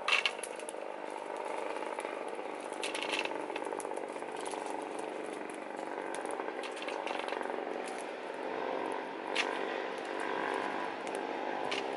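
Clam shells clicking as they are dropped into a pot, with the loudest click right at the start and a few more later, over a steady droning hum.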